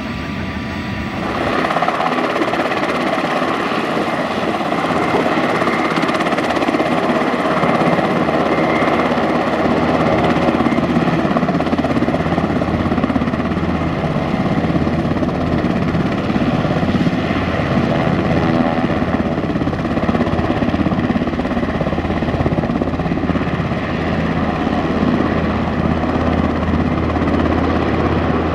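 Sikorsky CH-148 Cyclone helicopter's twin turboshaft engines and rotors running as it taxis: a steady turbine whine over a dense rotor rumble. It gets louder about a second and a half in.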